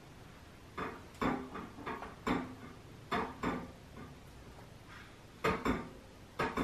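A knife knocking and clicking against a baking tray in short, irregular strokes as a tray of raw pumpkin kibbeh is scored into squares.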